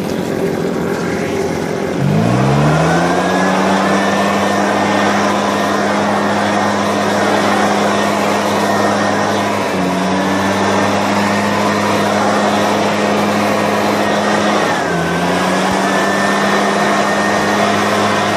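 Husqvarna 150BT backpack leaf blower's two-stroke engine revs up to full throttle about two seconds in and holds steady at high speed over a rush of air. The throttle eases off briefly twice and comes straight back up. It is running well after a carburettor clean-out and rebuild.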